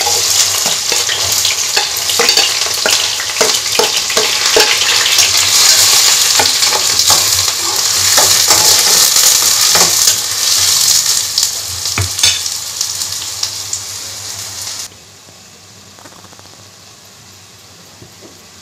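Chopped onions sizzling loudly as they hit hot oil with crushed garlic in a kadai, with a steel spatula clicking and scraping against the pan as they are stirred. About fifteen seconds in the sizzle cuts off suddenly to a low hiss.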